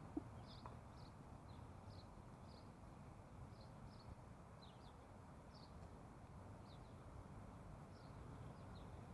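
Small songbird giving short, high chirps over and over, roughly two a second, over a low, steady hum of street traffic. A single brief knock sounds just after the start.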